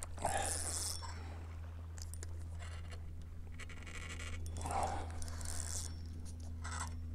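Rustling and scraping of a jacket sleeve and a spinning rod being handled close to a head-mounted microphone, loudest about a second in and again near five seconds, over a steady low hum.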